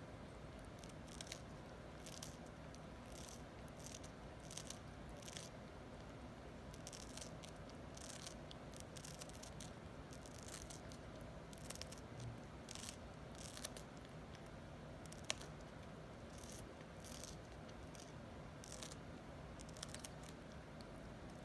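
Cockatoo's beak nibbling at a slice of watermelon: irregular small clicks and snips, with one sharper click about 15 seconds in, over a steady low hum.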